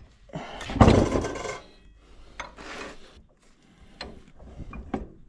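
A heavy cast bench vise being slid and shifted on a wooden workbench top: a loud scrape about half a second in, a shorter, quieter one later, and a few light knocks as it is set down.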